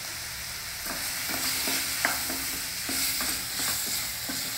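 Tomato and brinjal pieces sizzling in oil in a stainless steel kadai. From about a second in, a wooden spatula stirs them, scraping repeatedly against the steel pan.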